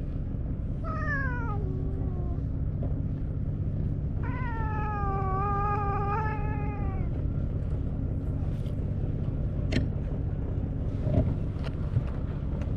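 Tabby cat meowing while being stroked: a short meow falling in pitch about a second in, then a long drawn-out meow of about three seconds starting about four seconds in. A steady low hum runs underneath, with a few light clicks near the end.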